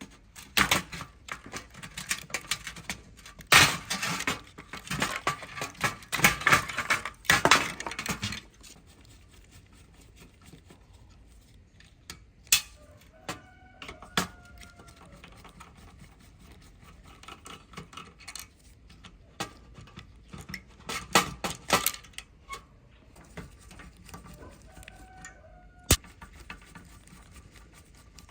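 Clinking and clattering of small hard objects being handled, dense for about the first eight seconds, then only scattered sharp clicks and knocks.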